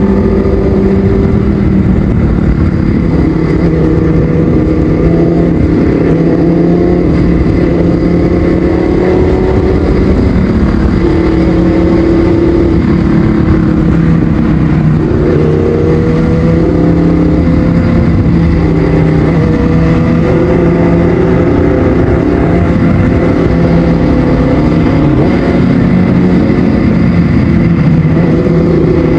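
Kawasaki ZX-6R inline-four running through a Yoshimura exhaust while being ridden. The engine note climbs and drops as the bike accelerates and changes gear.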